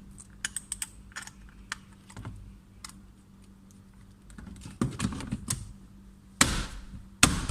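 Irregular small plastic clicks and taps from hands fitting a power window switch and car door trim, with a few clicks close together about five seconds in and a louder knock about six and a half seconds in.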